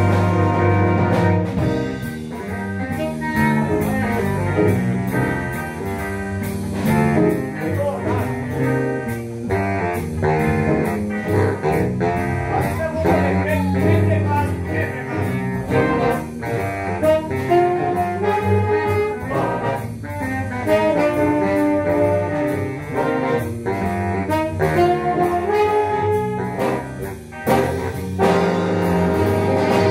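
Jazz big band playing an up-tempo number, the saxophone section and brass together over a steady beat.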